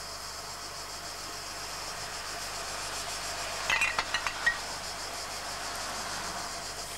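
Glass bottles clinking together as a bottle is dropped into a wooden crate of glass bottles: a quick cluster of five or six sharp clinks with short ringing, about halfway through.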